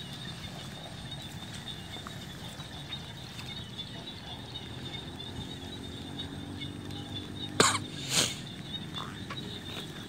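Chorus of small frogs (nhái) calling steadily in rain-wet grass, a dense high-pitched trilling that runs without a break. Two brief sharp noises stand out about three quarters of the way through.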